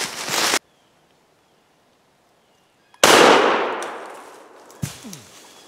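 A single gunshot about three seconds in, sudden and loud, echoing as it dies away over a second or more. A short, dull thump follows about two seconds later.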